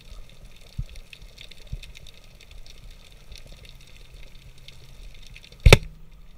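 Pneumatic speargun (Salvimar Predathor Vuoto 130) firing underwater: one short, sharp crack about five and a half seconds in, by far the loudest thing heard. Before it there is only a faint underwater background of small crackling ticks and a low hum.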